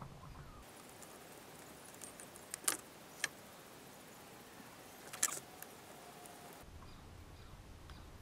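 A few light, sharp clicks and clinks as small chainsaw parts are handled and pushed into place during reassembly, in three or four separate taps.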